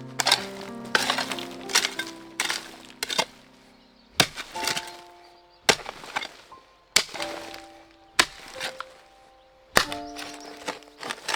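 A series of sharp, loud knocks or strikes, about one a second at first and then further apart, over background music with held notes.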